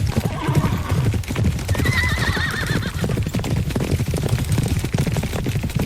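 Horses galloping, a dense run of rapid hoofbeats. A horse whinnies with a wavering call about two seconds in, and there is a fainter neigh near the start.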